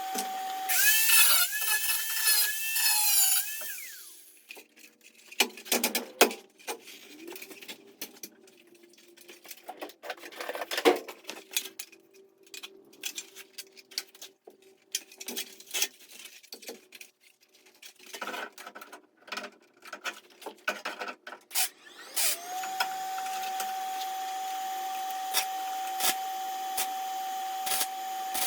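Workshop tool noise: a power tool whines for about three seconds, then scattered knocks, clicks and scraping, and a steady hum starts about three-quarters of the way through.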